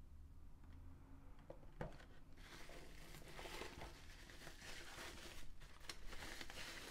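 Bubble wrap crinkling and rustling as it is handled, starting about two seconds in after a couple of faint knocks.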